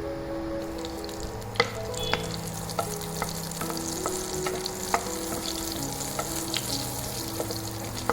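Food sizzling in a hot pan while it is stirred, with a spoon knocking and scraping against the pan a dozen or so times.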